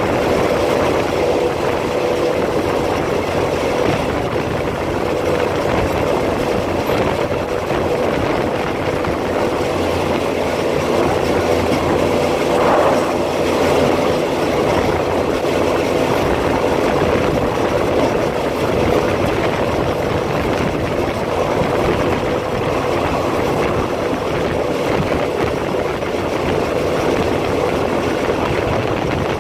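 Thai diesel railcar running along the line, heard from on board: a steady engine drone with a constant hum and the rumble of wheels on rail, briefly louder about halfway through.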